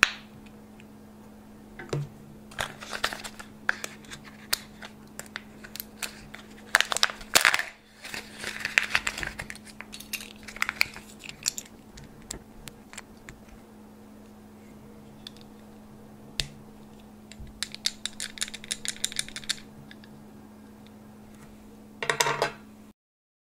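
Hands handling sweet packaging and a small plastic toy: crinkling of foil and paper wrapping in several bursts, with scattered clicks and taps of plastic parts. A steady low hum runs underneath, and the sound cuts off just before the end.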